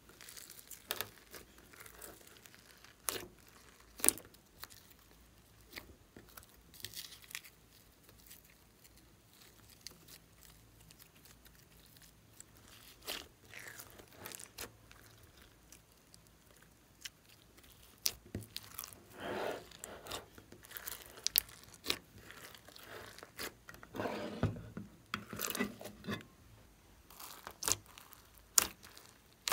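Hands squishing, folding and pressing glossy slime mixed with beads and chunky add-ins in a glass dish. Irregular sticky clicks, pops and crunching, with longer squelches in the second half.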